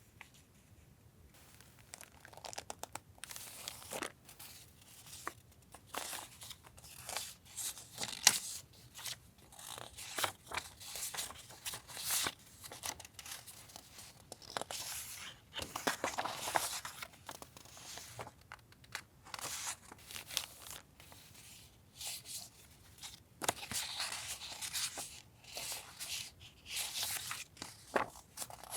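Paper and plastic wrapping being handled and unwrapped: repeated crinkling, rustling and tearing in short bursts, with a few light taps.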